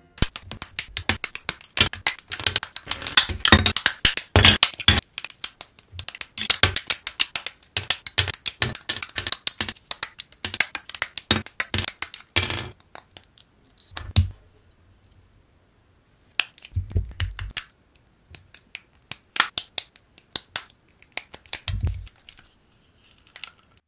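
Hard plastic model-kit parts and runners clicking and rattling as they are handled, twisted off the sprues and snapped together. Rapid sharp clicks come thick and fast for the first half, then single clicks and short knocks with pauses between them.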